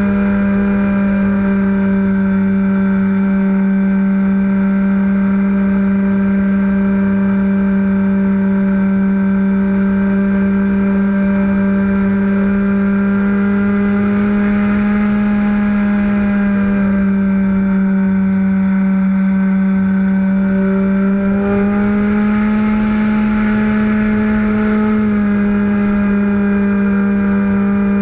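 A model airplane's motor and propeller running steadily at flight throttle, heard from a camera on the airframe as a strong steady hum. The pitch dips slightly for a few seconds past halfway, then rises briefly before settling back.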